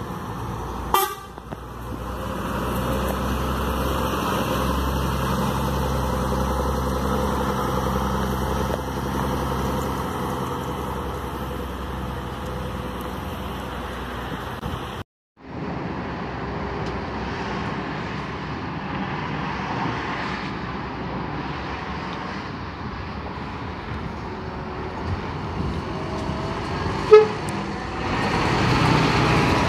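Intercity coach buses pulling away, their diesel engines running steadily. A short horn toot sounds about a second in, and another loud, brief toot near the end, as the second coach's engine grows louder.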